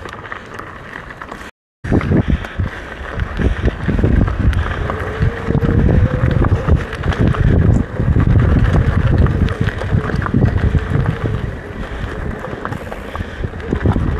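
Mountain bike riding over a dirt trail: wind buffeting the microphone over the rumble and rattle of the tyres and bike on rough ground. A steady hum joins about five seconds in. The sound cuts out for a split second near the start.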